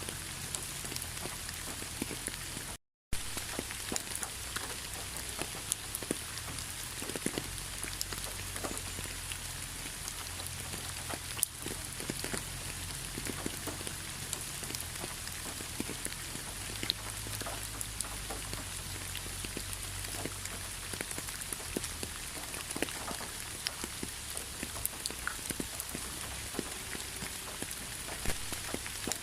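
Steady rain, individual drops ticking on a hard surface over an even hiss. The sound cuts out for a split second about three seconds in.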